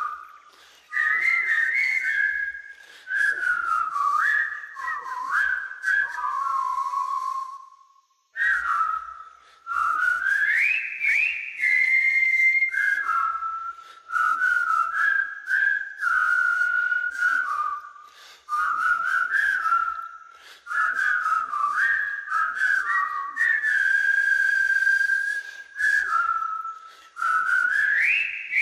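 A person whistling a tune: a single clear melody line with slides between notes, in phrases of a few seconds separated by short pauses for breath, and one longer break about a third of the way through.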